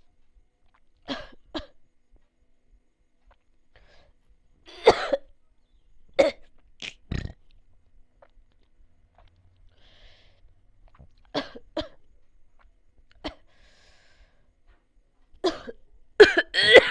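A person coughing repeatedly: about a dozen short coughs, single or in quick pairs, a few seconds apart, with a louder run of coughs near the end.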